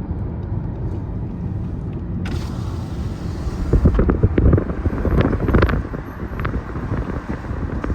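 Road and engine noise of a moving car, a steady low rumble, with wind noise growing louder from about two seconds in and peaking between four and six seconds.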